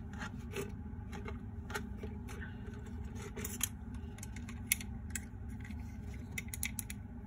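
Light clicks and scrapes of a small diecast toy truck being handled as fingers work its hinged rear door and tailgate, with a couple of sharper clicks in the middle.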